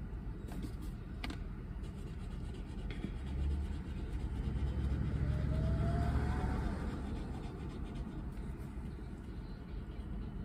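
Low, steady road-traffic rumble heard from inside a stationary car. It swells for a few seconds in the middle as a vehicle passes close by, with a faint rising whine at its peak. A couple of faint clicks sound near the start.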